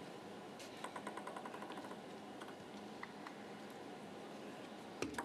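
Table tennis ball clicking: a quick, even run of about a dozen light bounces about a second in, then a few single taps and a sharper click near the end, over the low hum of the arena crowd.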